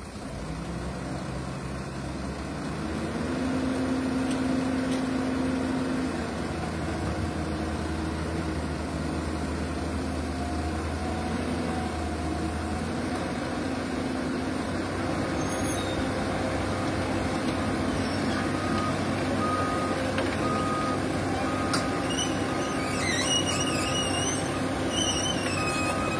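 Caterpillar 320C hydraulic excavator's diesel engine running steadily under load as the machine tracks up the ramp onto a flatbed truck, getting louder about three seconds in. In the last third a warning alarm beeps about once a second.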